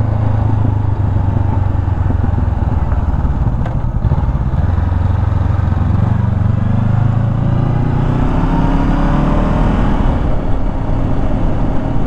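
Parallel-twin sport motorcycle engine running under way, a steady drone at first, then climbing in pitch from about halfway through as the bike accelerates.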